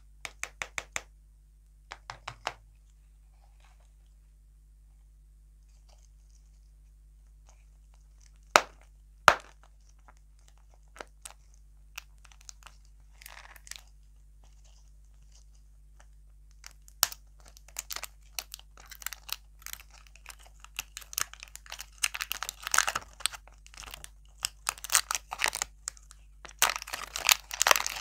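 Printed plastic wrapper of a toy lollipop ball being torn and peeled off, crinkling. It starts with a few sharp plastic clicks and two loud taps, then the crinkling builds and grows dense near the end.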